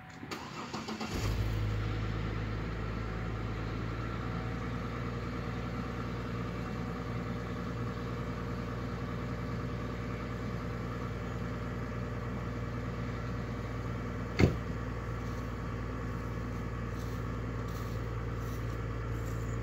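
2004 Chevrolet Trailblazer cranking and starting from cold, then idling steadily out of its stock tailpipe with a deep, even exhaust note. One sharp knock about fourteen seconds in.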